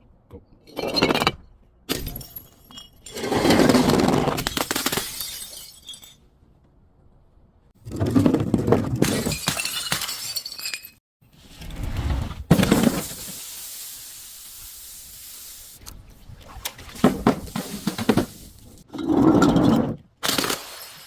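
Glass bottles smashing and crunching, about seven separate breaks, some short cracks and some longer crunching shatters with tinkling fragments.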